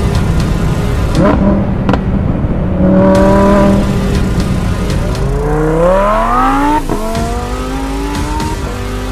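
Lamborghini Huracán Performante's V10 engine accelerating hard: its pitch climbs steeply from about five seconds in, drops sharply with an upshift just before seven seconds, then climbs again.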